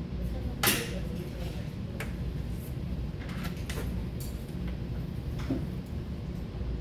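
Jacket fabric rustling and swishing as it is pulled on, with a few short knocks and clicks, the loudest under a second in, over a steady low hum.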